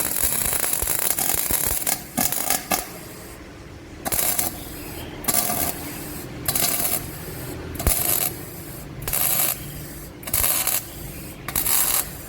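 Gasless flux-core MIG welding arc hissing and crackling, first in one steady run of about two seconds, then in short half-second bursts about every second and a quarter as the trigger is pulsed to stitch-weld thin steel.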